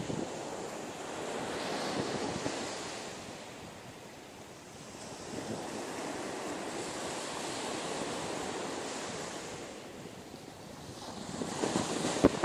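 Surf washing on a sandy beach, swelling and easing in slow surges, with wind rumbling on the microphone. A few sharp knocks come near the end.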